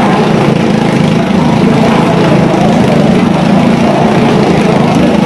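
Motorcycle engine running steadily at speed as the bike circles the vertical wooden wall of a wall-of-death drum, loud and continuous.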